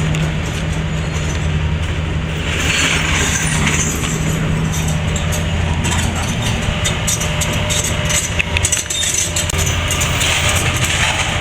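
Heavy diesel excavator engine running steadily, with irregular metallic clanks and knocks as steel buckets are handled, busier in the second half.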